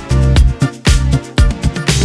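Background music with a steady beat: drum hits about twice a second over a bass line.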